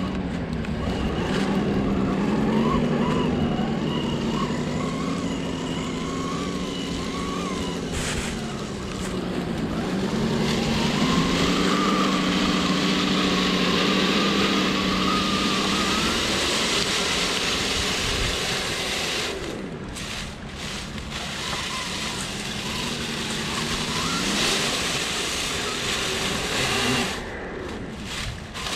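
Brushless electric motor and gear drivetrain of an Axial SCX10 III 1/10-scale RC rock crawler whining as it crawls, the pitch rising and falling with the throttle. The whine fades out a little past halfway and returns briefly near the end, over a steady hiss.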